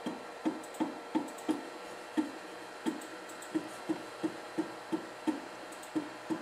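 Ender 3 extruder clicking as its stepper skips, about three sharp clicks a second at slightly uneven spacing, each with a short twangy ring. The wire it is pushing is caught on debris in the feed path and is not advancing.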